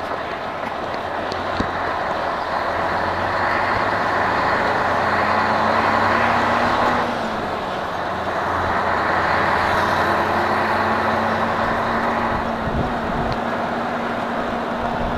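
Truck engine and road noise heard from inside the cab while driving. The engine pulls steadily, eases off suddenly about seven seconds in, then pulls again before easing near the end.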